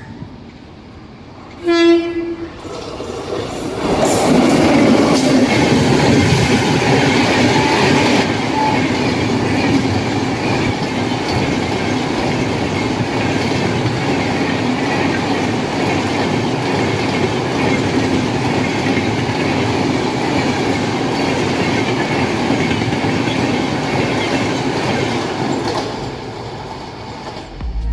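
Sachkhand Express train sounding a short horn note about two seconds in, then passing close by: steady loud rail and wheel noise for over twenty seconds, fading away near the end.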